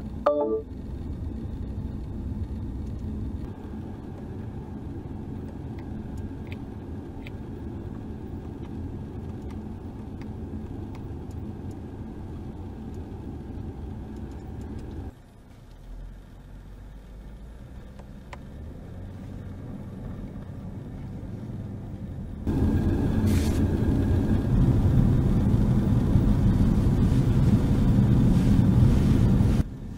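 Road and tyre noise inside the cabin of a moving 2017 BMW 5 Series, a steady low rumble. About halfway through it drops much quieter, then comes back markedly louder for the last several seconds.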